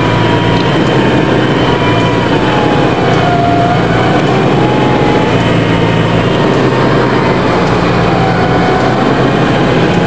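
A 4x4's front-mounted winch whining steadily as it hauls the vehicle through deep mud, with the engine running underneath. The whine dips slightly in pitch about three seconds in.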